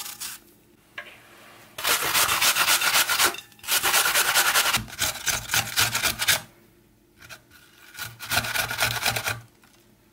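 A peeled apple grated on a box grater: three spells of fast rasping strokes, the first two long and nearly joined, the third after a pause of about a second and a half.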